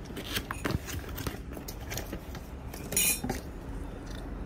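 Handling noise from unpacking a drip coffee maker and its box contents: scattered light clicks and knocks, with a brighter clink about three seconds in.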